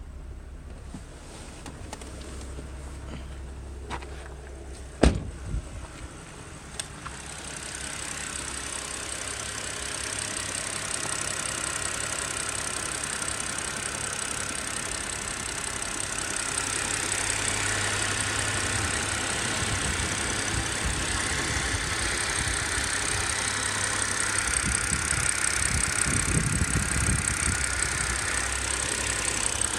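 BMW E90 330i straight-six engine running hot after a hard 30-minute drive, making the noise its owner calls bad. A sharp click comes about five seconds in, then the engine sound grows louder and fuller, with a steady high whine over it.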